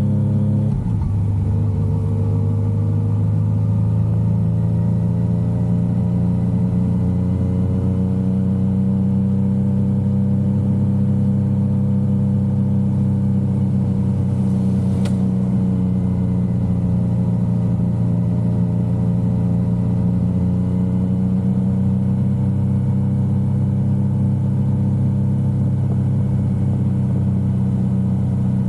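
Yamaha XSR900's three-cylinder engine running at a steady cruise, its pitch dipping briefly about a second in and then drifting gently up and down. A short click about halfway through.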